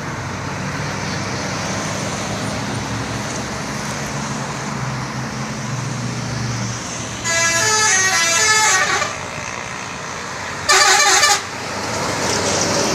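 Telolet horn on a Scorpion Holidays tour bus playing a short tune of changing notes for about two seconds, then a second, shorter blast a couple of seconds later, over the steady running of the bus engine and road noise.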